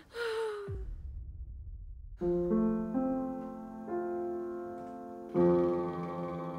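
A woman's voice trails off, then a low rumble lasts about a second and a half, giving way to a piano playing slow, held chords that change about once a second.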